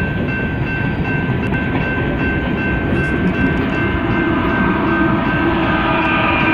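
BNSF coal train rolling past close by: the hopper cars rumble and clack over the rails, then the rear diesel locomotives come by and their engine sound rises in the mix from about four seconds in. A steady high-pitched tone runs over the rumble throughout.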